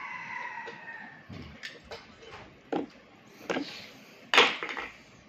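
Espresso tamper pressed hard into a portafilter basket of ground coffee, with a short falling squeak in the first second, then several separate clicks and knocks of metal coffee tools being handled, the loudest about four seconds in.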